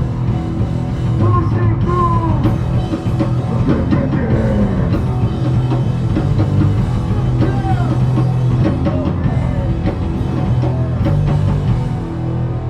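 Live punk/hardcore band playing loud and steady: heavy distorted guitars, bass and pounding drum kit, heard through a club PA.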